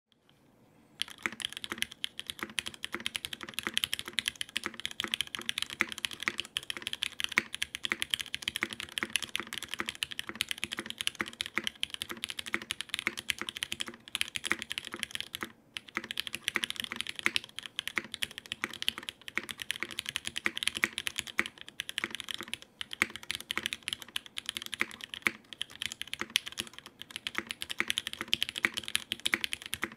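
Steady typing on a HAUS mechanical keyboard with lubed, broken-in Cherry MX Black linear switches on 62 g springs, an aluminium plate and GMK Wild keycaps: a dense run of keystroke clacks that starts about a second in, with a couple of short pauses midway.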